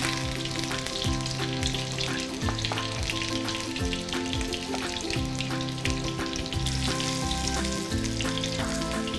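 Heart of palm pieces sizzling as they sear in browned butter in a hot frying pan, under background music with a bass line and a steady beat.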